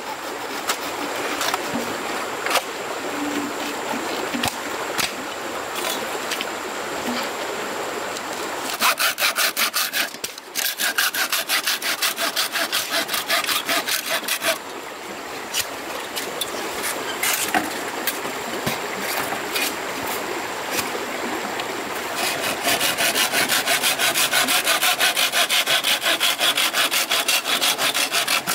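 Hand saw cutting wood in fast, even back-and-forth strokes, in two spells: a shorter one about a third of the way in and a longer, louder one near the end. Before and between them come scattered knocks and handling of wood.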